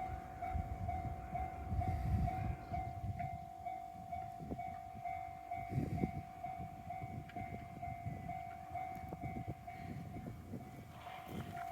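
Railway level-crossing warning bell ringing steadily, a single pitched electronic ding repeating at an even rhythm, over low rumbling noise.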